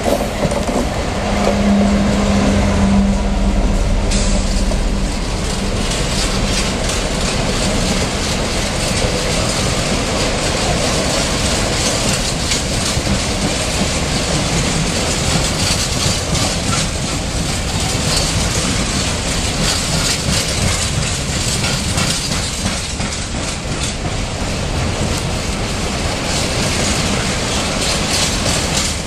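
Class 66 diesel-electric locomotive passing close with its engine running, loudest in the first few seconds. A long rake of freight wagons follows, rumbling and clattering over the rail joints.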